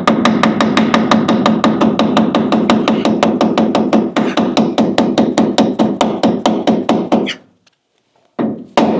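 Rapid, even hammer taps, about five a second, driving a lubricated metal sleeve into a polyurethane leaf-spring bushing. The tapping stops about seven seconds in, then starts again near the end.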